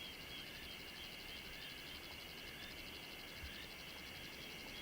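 Steady wild chorus of calling insects and frogs: a rapid, even high trill over a band of wavering calls.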